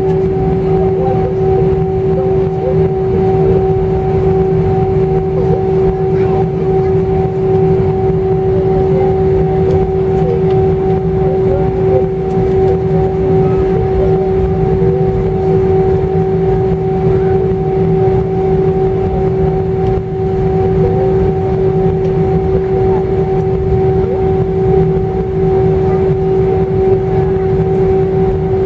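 Cabin noise inside an Airbus A318 as it taxis: a steady low rumble with a constant hum, from the jet engines at taxi power and the cabin air system.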